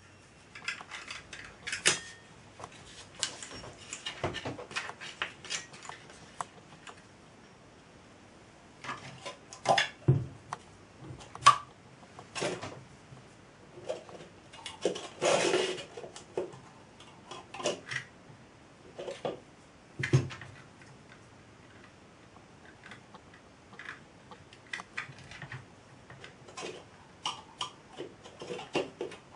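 Metal parts of a small model steam traction engine clinking, knocking and scraping as it is handled and turned over on a wooden workbench: scattered sharp clicks, a few louder knocks, and a longer scrape about fifteen seconds in.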